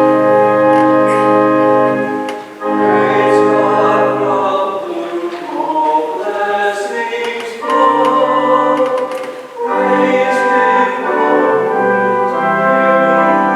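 Church organ playing a hymn in held chords, with voices singing along, in phrases with short breaths between them.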